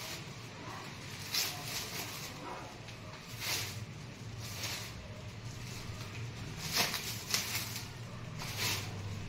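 Clear plastic film being pulled and unwound from a coil of drip-irrigation tubing, crinkling and rustling in short irregular bursts, the loudest a couple of crackles near the end, over a steady low hum.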